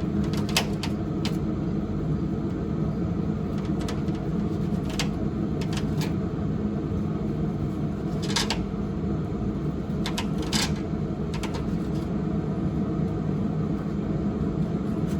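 Knife slicing a tomato on a cutting board: a few scattered short taps and cuts, over a steady low hum.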